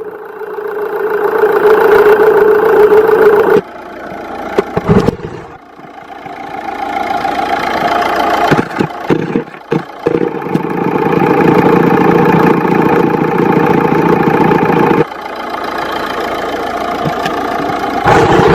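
Running car engine heard through a mechanic's stethoscope. Its tone and loudness change abruptly several times as the probe is moved from one engine part to another, with short knocks and scrapes between placements.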